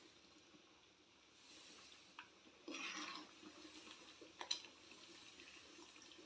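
Faint sounds of semolina being stirred into simmering water in a steel pot with a steel spoon: a soft bubbling and scraping wash, with a brief louder rush about three seconds in and a sharp click about four and a half seconds in.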